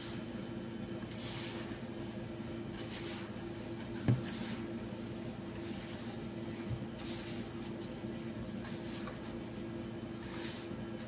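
A hand mixing and squeezing the crumbly brown sugar filling for piyaya in a plastic basin: soft rustling swishes, about one a second. A steady low hum runs behind, and a dull knock sounds about four seconds in.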